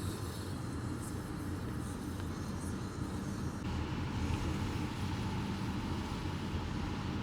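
Steady low rumble of a vehicle driving, road and engine noise without any distinct events.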